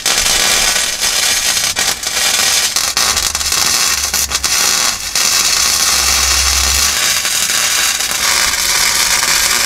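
Lincoln 140 MIG welder running flux-core wire, spot-welding a new sheet-steel floor pan in place. The arc crackles and spatters steadily, broken by a few very brief gaps.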